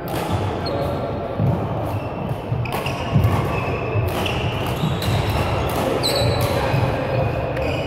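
Badminton rally in a large sports hall: repeated sharp racket strikes on the shuttlecock, sneakers squeaking on the court floor, and the thud of players' footfalls, all echoing.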